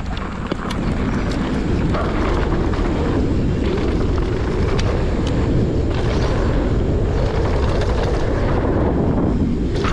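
Wind rushing over the microphone and mountain bike tyres rolling over a dirt trail while riding downhill at speed, a steady loud rumble with scattered clicks and rattles.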